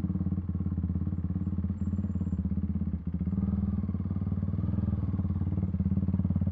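Single-cylinder engine of a KTM RC390 motorcycle running steadily under way, with a brief dip in level about three seconds in.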